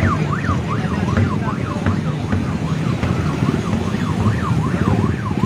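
Several electronic sirens sounding at once, each in quick rising-and-falling yelps about three a second, over the steady running of many motorcycle engines.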